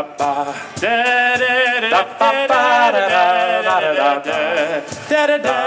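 A man singing a string of held, wordless vowel notes, several long notes with a slight waver, as a vocal sound check.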